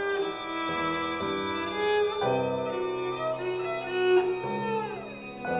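Violin and cello playing sustained bowed notes in a contemporary chamber piece, the pitches shifting every second or so. A little past the middle, a note slides downward in pitch.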